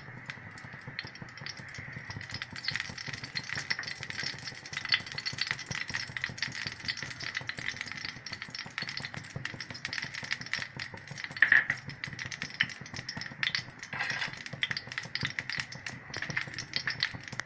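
Ghee melting in hot coconut oil in a pan, sizzling with a steady, dense crackle of many tiny pops.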